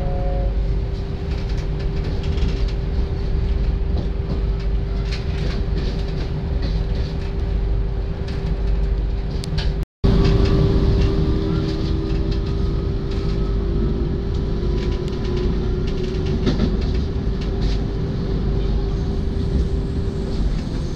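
Running noise of a regional passenger train heard from inside the carriage: a steady low rumble of wheels on rail with scattered clicks from the track, and a steady whine. After a brief dropout about halfway through, a second whine rises slowly as the train gathers speed.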